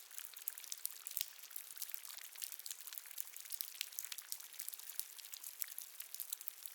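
Water dripping in a cave: many small drops land in quick, irregular succession over a faint hiss.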